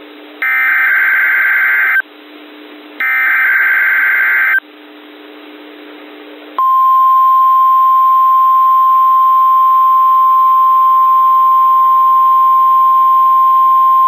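NOAA Weather Radio Emergency Alert System test over a weather radio receiver: two short, raspy bursts of SAME header data about a second apart, then, after a pause of hiss, the steady 1050 Hz warning alarm tone comes on and holds. This is the Required Weekly Test of the alert signals.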